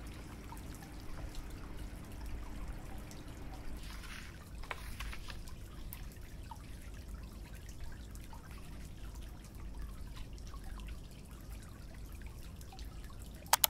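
Paper cards being handled on a cutting mat: faint rustles and small ticks over a low steady room rumble. Two sharp clicks near the end are the loudest sounds.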